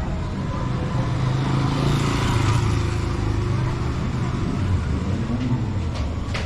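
A motor vehicle's engine running steadily, growing louder about two to three seconds in.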